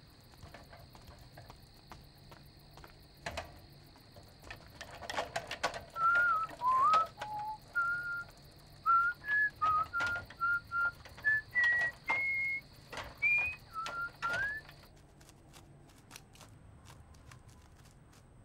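A person whistling a short tune of single stepping notes from about six seconds in to nearly fifteen seconds. Under it runs a steady high chirring of crickets, which stops near fifteen seconds, and scattered clicks and knocks.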